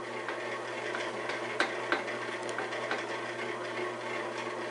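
Cuisinart bread machine's motor running steadily, turning the kneading paddle to mix the bread ingredients, with a few light clicks about one and a half to three seconds in.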